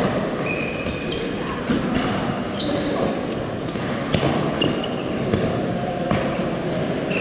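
Badminton rally: sharp racket strikes on the shuttlecock, the loudest about four and six seconds in, mixed with short high squeaks of court shoes on the floor.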